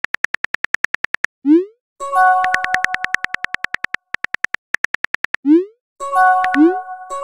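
Texting-app sound effects: rapid, evenly spaced keyboard typing clicks in two runs. Each run ends with a short rising swoop as a message is sent, followed by a chime of several steady tones that fades over about a second.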